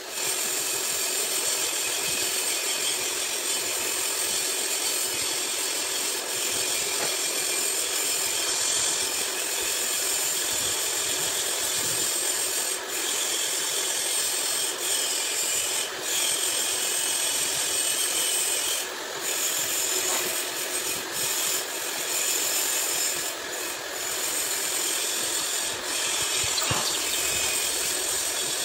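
Lathe cutting tool turning down the spray-welded coating on a hydraulic screw shaft: a steady scraping hiss of the cut, with a few short dips in level.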